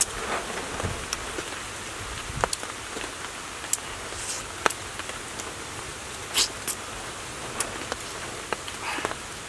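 A man eating cooked fish by hand: short sharp clicks and smacks of biting and chewing, scattered irregularly over a steady hiss.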